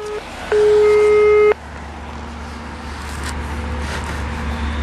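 Telephone ringback tone: the same steady beep sounds twice, the second lasting about a second. It means the outgoing call is ringing and has not yet been answered.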